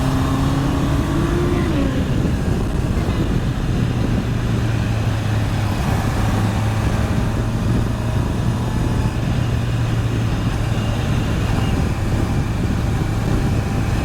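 Honda CBR650R's inline-four engine running at a steady cruising pitch while riding, with heavy wind and road rush on the bike-mounted microphone.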